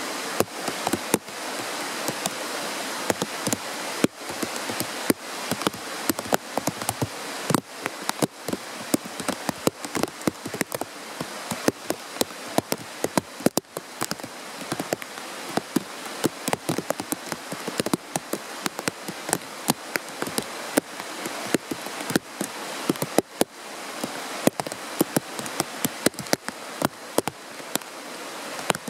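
Mountain stream rushing over stones: a steady hiss of water with a dense, irregular run of sharp splashes and drips.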